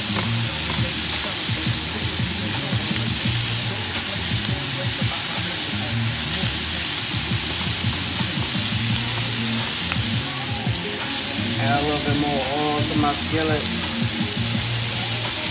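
Blackened shrimp frying in a ridged cast-iron grill pan, giving a steady sizzle.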